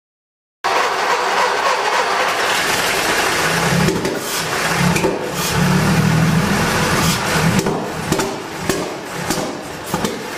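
Freshly rebuilt 1920 Seagrave fire engine motor running loud and rough, starting abruptly under a second in. From about halfway on, irregular sharp pops break through as the level wavers: an engine on its first run, not yet tuned.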